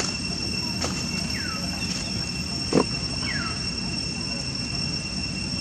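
Steady high drone of insects, a constant two-tone whine, with two short falling calls about a second and a half apart and one brief loud thump near the middle.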